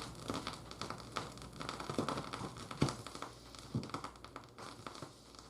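Packaging being handled, crinkling with many small irregular crackles.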